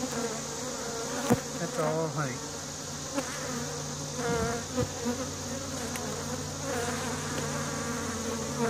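A honeybee colony buzzing over an open hive box: a steady low hum, with single bees flying close and passing with wavering rises and falls in pitch. A sharp click about a second in.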